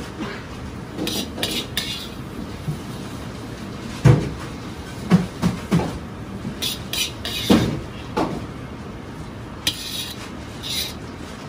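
Chinese ladle clinking and scraping as fried rice is scooped and heaped onto a ceramic plate: a run of sharp knocks, the loudest about four seconds in, and a few short high scrapes.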